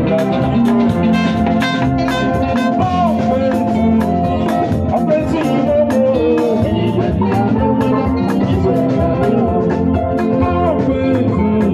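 Band music with guitar over a steady, quick drum beat.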